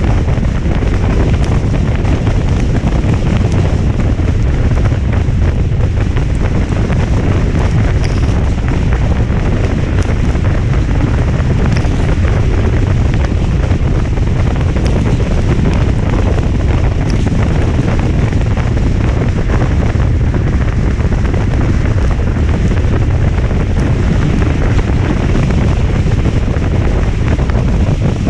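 Steady wind noise buffeting the microphone over a wash of rain, with a few faint ticks.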